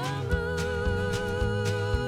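Country-style pop song music: a held, wavering melody note that slides up at the start, over a steady drum beat and bass.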